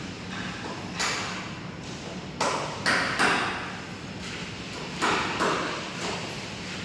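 Irregular sharp knocks with a short ringing decay, about six of them, some in quick pairs, over a steady background hum.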